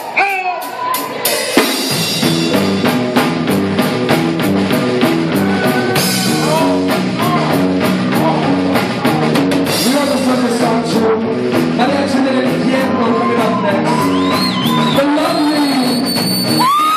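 Live rock band playing loud, a drum kit keeping a fast, steady beat under singing; the full band comes in about two seconds in.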